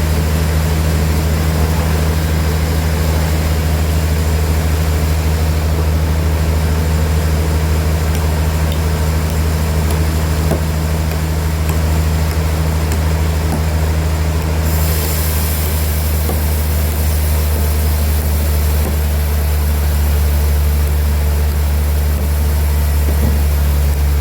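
Sawmill machinery running with a steady, low, unchanging drone. About fifteen seconds in, a higher hiss joins it.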